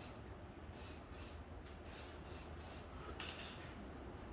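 Aerosol spray-paint can hissing in short bursts, about two a second, as paint is sprayed onto a freshly welded steel frame.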